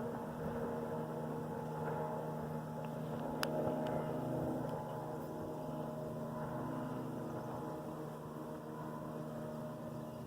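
Motorboat passing on the water, its engine a steady drone.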